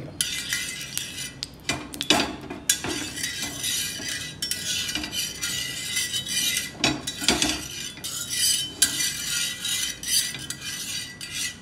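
A silicone spatula spreading oil over a hot iron dosa tawa: steady scraping and swishing across the pan surface, with scattered sharp knocks and clicks as it strikes the pan.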